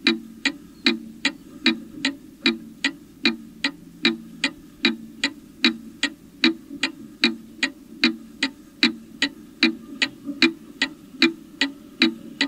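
A domestic chiming clock's movement ticking steadily, with an even tick-tock of about two and a half ticks a second.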